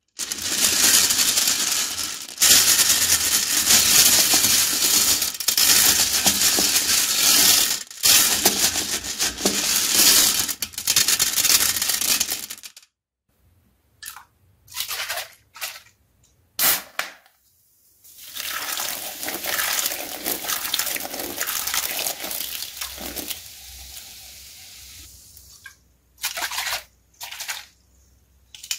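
Hard round candies and small balls clattering and rattling against a porcelain toilet bowl as they are handled and poured in. There is a long stretch of dense rattling, then short separate rattles, then another long pour that tails off.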